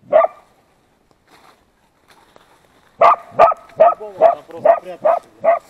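Laika hunting dogs barking at a badger burrow. There is a single bark, a pause, and then from about three seconds in a steady run of barks, two or three a second: the dogs baying at the den to mark quarry inside.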